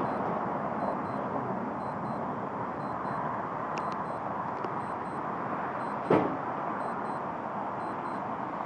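Steady hum of road traffic with no siren sounding, and a single short knock about six seconds in.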